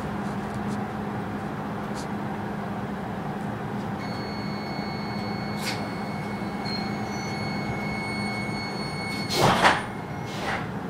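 X10 commuter train standing at a platform, heard from inside the car: a steady electrical hum from its onboard equipment, a thin high steady tone from about four seconds in, then a loud short whoosh and thud near the end as the doors close, with a smaller knock just after.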